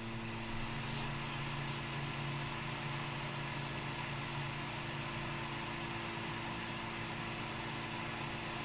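Microwave oven running: a steady electrical hum with a fan-like whir, unchanging throughout.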